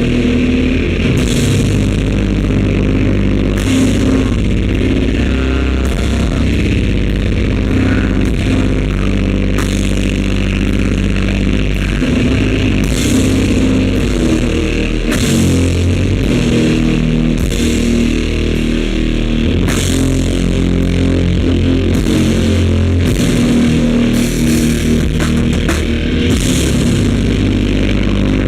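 Heavy rock band playing live, with loud distorted guitar and bass, drums and crashing cymbals. The audience recording is badly distorted and bass-heavy, with very bad sound.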